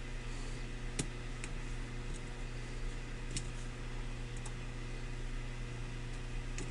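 A few faint, sharp clicks of a lock pick working the pin stack of a Wincos padlock, the clearest about a second in, over a steady low hum.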